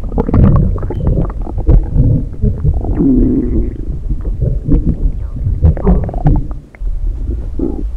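Stomach rumbling and gurgling: low bubbling growls with many short pops, which break off briefly a little over a second before the end.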